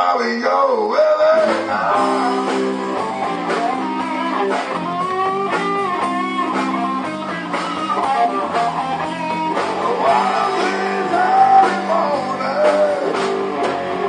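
Live blues-rock band playing: an electric guitar with bending, wavering notes over held chords and drums.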